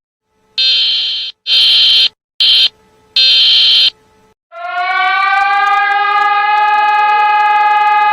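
Emergency alert alarm: four harsh buzzing blasts of uneven length, then a siren tone that rises in pitch and holds steady.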